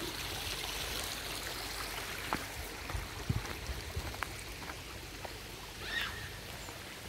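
Footsteps crunching on wood-chip mulch, as a scatter of irregular light crunches and clicks over a steady rushing hiss. A short chirp sounds about six seconds in.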